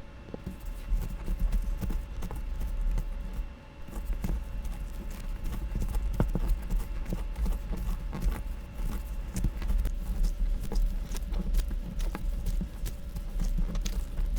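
A rapid, irregular series of knocks and thumps over a low rumble, with a faint steady hum underneath.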